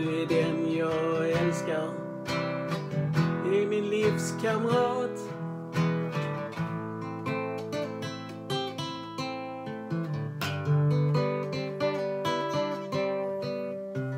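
Nylon-string classical guitar strummed and picked in steady chords, with no sung words. A man's voice carries a wavering, wordless line twice in the first five seconds.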